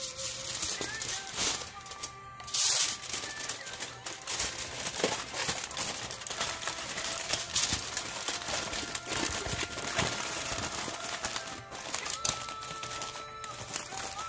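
Aluminium foil crinkling and crumpling in dense, irregular crackles as it is folded and pressed by hand around a banana-leaf parcel, loudest a couple of seconds in. Quiet background music with a thin melody plays underneath.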